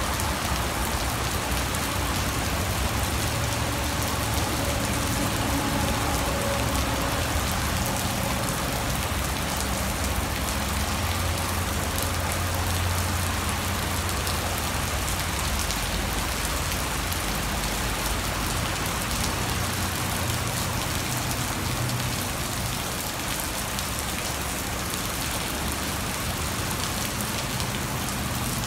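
Heavy rain pouring steadily onto a wet tiled patio and paving, an even, unbroken wash of drops.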